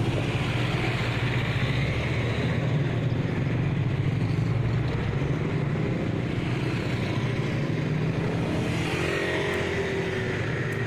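Motor vehicle engines running steadily, like road traffic. Near the end one engine's pitch rises as it speeds up or passes.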